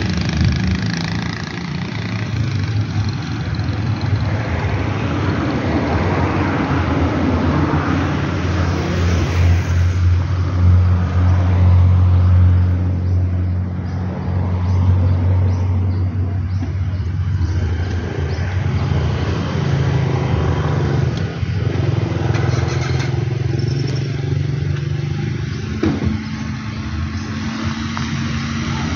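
Motor vehicle engines running close by: a steady low drone that swells loudest a little before the middle, then eases off.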